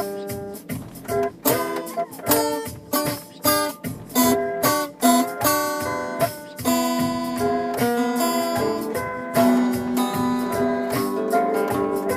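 Acoustic guitar music: a continuous run of plucked notes and chords with frequent sharp attacks.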